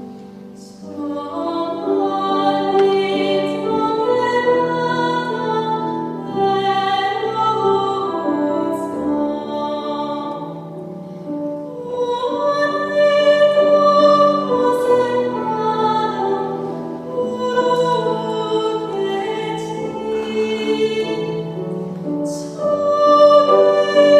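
Background music: a slow, sustained melody of long held notes, swelling and easing, with a brief softer passage about halfway through.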